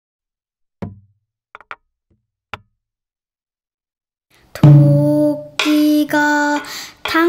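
Four short, sharp knocks spread over the first three seconds. Then, about four and a half seconds in, a child's voice starts singing a pansori-style line loudly in long held notes.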